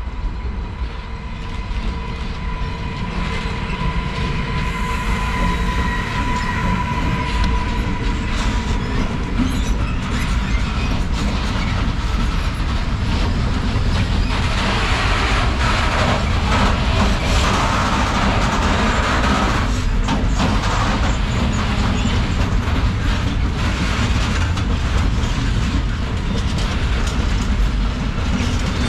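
Train passing close by on the rails: a steady rumble that builds over the first few seconds, with a thin high tone for the first several seconds and a shrill wheel squeal in the middle.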